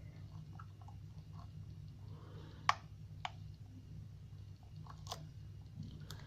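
Lock pick working the pins of a pin-tumbler challenge lock under tension: a few small, sparse metallic clicks and ticks, the sharpest one near the middle, over a steady low hum.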